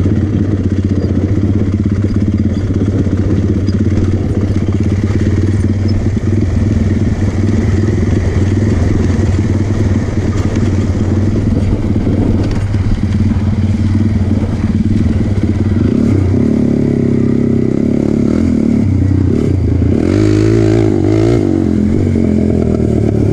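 Honda TRX450 quad's single-cylinder four-stroke engine running steadily on the move. The engine note changes about two-thirds of the way through, and a rev rises and falls near the end.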